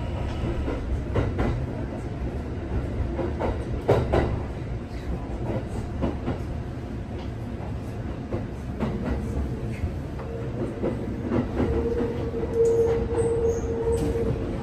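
Interior running sound of a Kintetsu 8A series electric train car: steady low rumble with scattered wheel-on-rail knocks, the loudest about four seconds in. A steady single-pitched hum comes in about ten seconds in and grows louder near the end.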